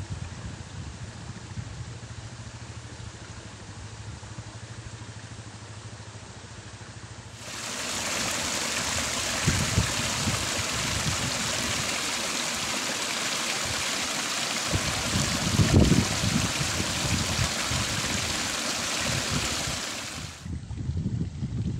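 Water gushing steadily from the end of a black plastic pipe into a muddy pool. It starts suddenly about seven seconds in and cuts off shortly before the end. Before it there is only a faint low hum with light rustling.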